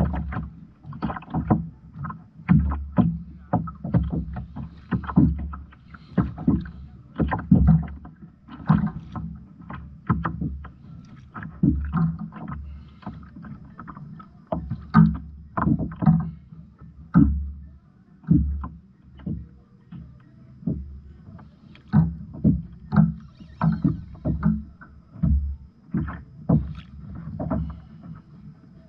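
A kayak on the water: irregular knocks, thuds and splashes against the hull, roughly one or two a second.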